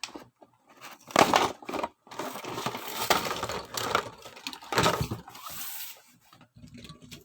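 Crinkling and crackling of a stiff plastic blister pack and cardboard being pulled and torn open by hand, in irregular bursts, loudest a little over a second in and again near five seconds.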